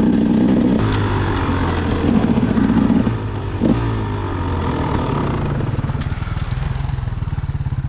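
Dirt bike engine running under the rider, held on the throttle for the first three seconds, a brief rev just after, then easing to a low, even beat as the bike slows and rolls along.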